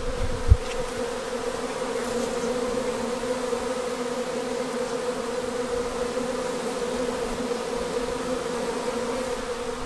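Honey bees buzzing close by in a steady hum, with a bee beginning to fan its wings at the entrance of a swarm box. A single short knock about half a second in.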